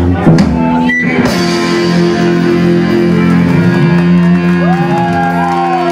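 Live rock band with electric guitars and drum kit closing a song: a final crash about a second in, then the guitars left ringing on a held chord over a fading cymbal wash. Wavering notes that rise and fall come in over it near the end.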